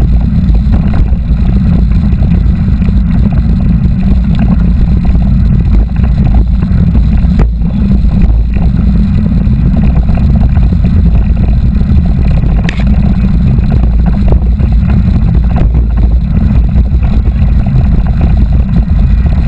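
Wind buffeting a helmet or handlebar camera's microphone while riding a mountain bike: a loud, steady low rumble with small rattles and knocks from the bike and trail mixed in.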